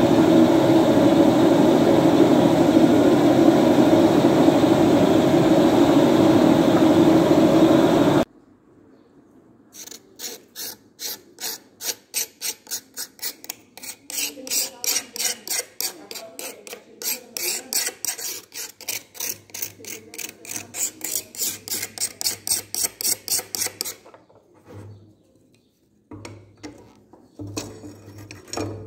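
A steady loud rushing noise while the knife blade sits in the flaming oil quench, cutting off suddenly about eight seconds in. Then quick repeated scraping strokes, about three or four a second, as a tool is worked along the quenched steel blade to clear off the burnt oil and scale.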